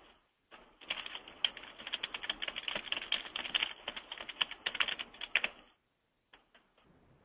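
Typing on a computer keyboard: a quick, dense run of key clicks lasting about five seconds, then stopping.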